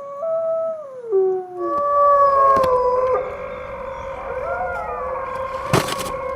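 Wolves howling in chorus: several long, overlapping notes at different pitches, some sliding down about a second in, with a sharp click near the end.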